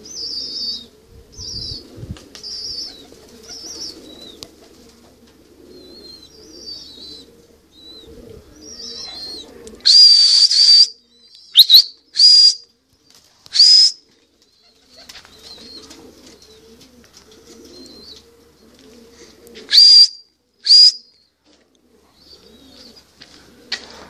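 Small birds chirping in quick short calls, then a series of six loud, shrill whistles, each sweeping up in pitch at the start: the first lasts about a second, the rest are short, and they come in two groups about six seconds apart.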